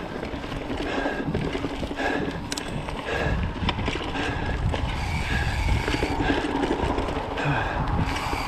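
Mountain bike rolling fast along a dirt forest singletrack: tyre rumble on the trail and rattle of the bike, with wind noise on the microphone.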